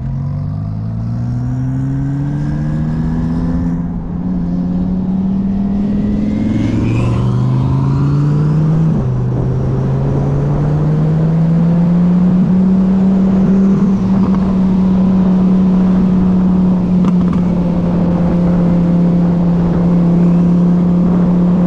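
Twin-turbocharged Audi R8's engine accelerating hard, its pitch rising and then dropping abruptly twice, about four and nine seconds in, as it upshifts. After that it pulls on in a steady, slowly rising drone over road and wind rush.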